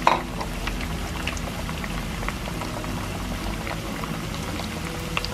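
Pieces of green plantain deep-frying in hot oil in a pan: a steady sizzle full of small crackles and pops, after a short louder burst right at the start. This is the first fry of patacones, which cooks the plantain through before it is flattened.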